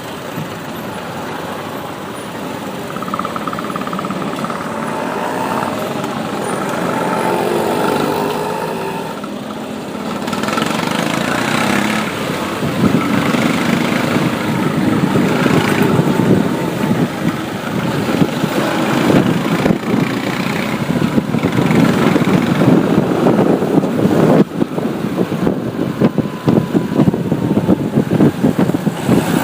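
Road traffic heard from a moving motorbike: engines of nearby vehicles and road noise, growing louder and rougher from about ten seconds in.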